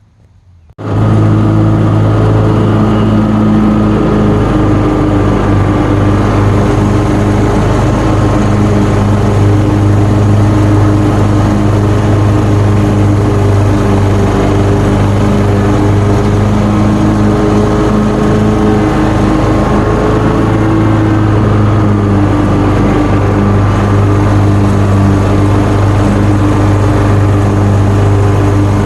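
John Deere mower's engine running steadily at cutting speed while mowing thick, wet grass, starting abruptly about a second in.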